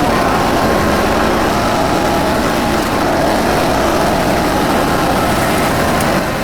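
TYM 2515H compact tractor's diesel engine running steadily while the tractor is driven, its pitch wavering slightly.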